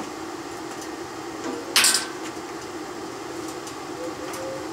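Steady hum of a small inverter stick welder's cooling fan running at idle, with one brief, sharp noise about two seconds in as something is handled at the welding bench.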